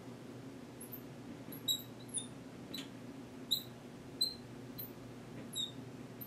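Felt-tip marker squeaking on lightboard glass while lines are drawn: a string of short, high squeaks, roughly one every half second to second, over a low steady hum.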